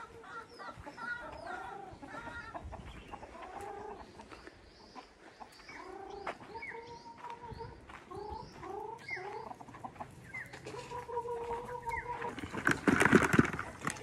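Domestic chickens clucking and calling, many short bending calls with some higher rising chirps. Near the end comes a brief loud rustling burst.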